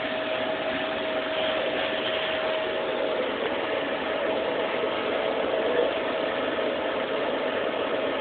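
Vacuum cleaner running steadily, a constant rushing noise with a steady whine from its motor.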